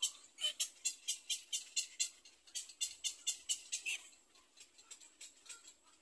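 Black-crowned night heron nestling calling in a rapid series of short, high ticking notes, about five a second, growing fainter after about four seconds.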